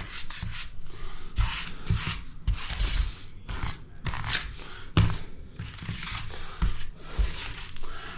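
Grouting tool scraping and rubbing grout across ceramic wall tiles in irregular strokes, with a sharper knock about five seconds in.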